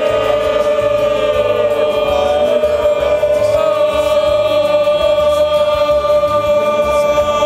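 Several voices singing together in long held notes, like a choir or a sung chorus.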